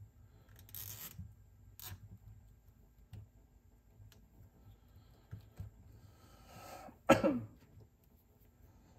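Nylon zip ties being pulled tight around wiring inside a cassette deck: short ratcheting rasps about a second in and near two seconds, small clicks, and a louder rasp falling in pitch about seven seconds in.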